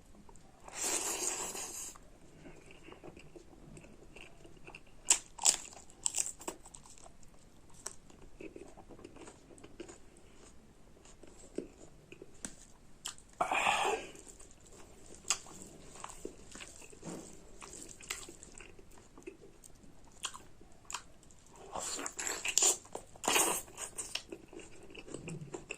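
Close-up eating sounds of a mouthful of spicy pork curry and rice being chewed and bitten, with wet mouth clicks and smacks. Louder noisy bursts come about a second in, midway through, and in a cluster near the end.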